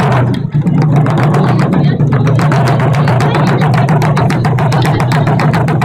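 Ensemble of taiko drums beaten together in a fast, even rhythm, with rapid evenly spaced strokes over a constant deep drone.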